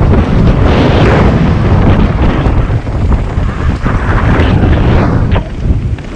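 Loud wind rush buffeting a helmet-mounted camera's microphone, mixed with the rumble of mountain bike tyres on a dry dirt trail during a fast descent; it eases briefly near the end.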